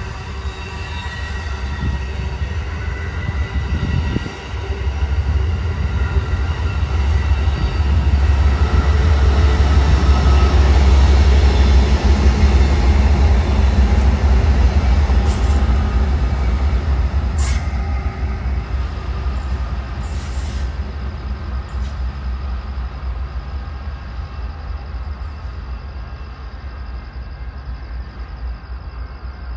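Amtrak passenger train rolling past close by: Superliner cars with a steady high wheel squeal, then the trailing GE Genesis P42DC diesel locomotive, whose low rumble is loudest around the middle. The rumble fades as the train moves away, with a few sharp clicks from the wheels and rails.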